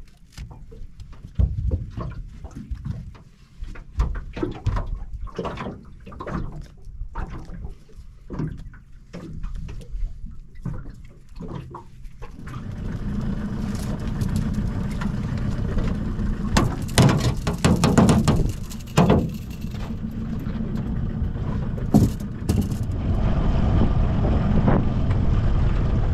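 Irregular knocks and clunks in an aluminium dinghy, then from about halfway a small outboard motor running steadily as the boat moves along the river, with a few louder splashy bursts.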